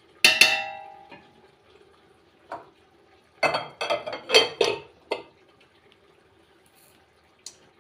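Stainless steel pots and a utensil clanking: one loud ringing clang at the start, a single knock, then a quick run of five or six clattering knocks in the middle.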